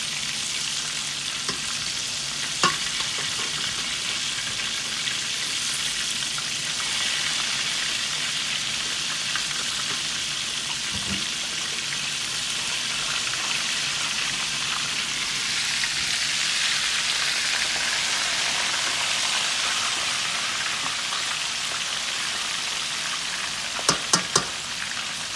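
Chicken pieces deep-frying in oil in a stainless steel pan, a steady sizzle; the chicken is nearly done. Metal tongs click against the pan a few times, loudest in a quick run of three clicks near the end.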